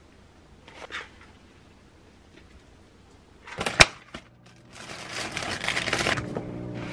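Plastic food packaging being handled: a sharp click of a plastic container set down on the table, then a second and a half of crinkling and tearing as plastic wrap is pulled off a clamshell of grapes. Music comes in near the end.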